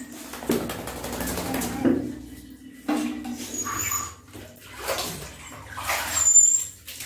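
Small dog whining in a series of short, uneven cries.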